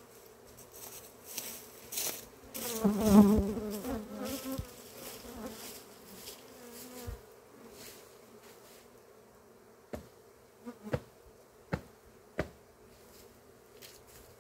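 Italian honeybees buzzing around a crowded hive, with one bee passing close and loud about three seconds in, its pitch wavering as it goes by. Fainter buzzing follows, then several short sharp ticks near the end.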